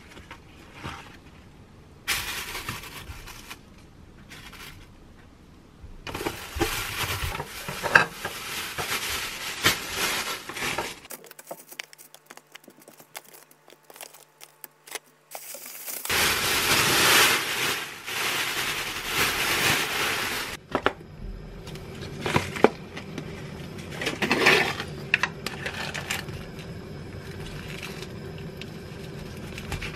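Plastic wrap and packaging crinkling and rustling as sliced raw meat is handled into plastic-lined bowls, with scattered light clicks and knocks on the counter. There is a brief quieter stretch partway through.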